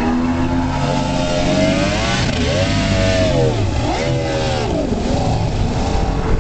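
Outboard motor on a Hydrostream race boat accelerating hard on take-off. Its pitch climbs, dips and climbs again about twice as the boat gets up and runs, then drops away near the end.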